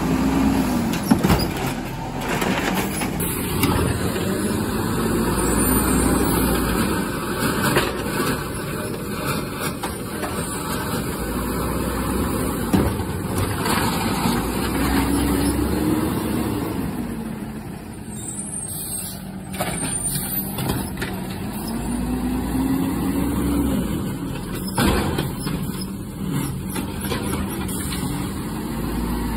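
Garbage truck engine revving up and falling back several times while the truck works on trash, with a few sharp knocks among it.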